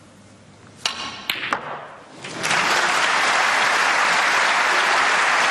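Sharp clicks of a snooker cue and balls striking, three knocks in quick succession about a second in, followed from about two seconds in by a crowd applauding a successful pot.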